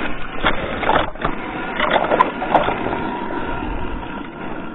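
Crunching and scraping of snow and ice on a frozen marsh, continuous, with irregular louder crunches.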